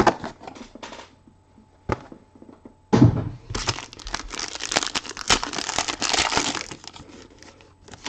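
Trading card box and pack packaging being torn open by hand: a few sharp rips and clicks, then about four seconds of dense crinkling and tearing.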